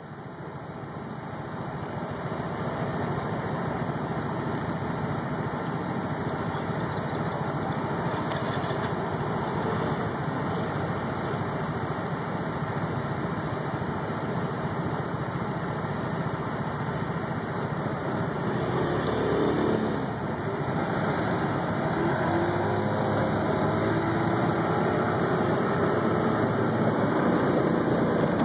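Small engine of a three-wheeled tour scooter car running at idle. About two-thirds of the way in it changes and then runs a little louder as it pulls away.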